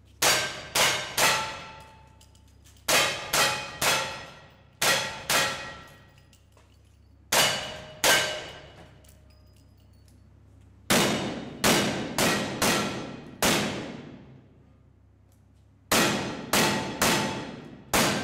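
Lever-action rifle fired about ten times in quick strings, then a revolver fired in two strings of five. Each shot is followed by the ring of a steel plate target, and the shots echo on the indoor range.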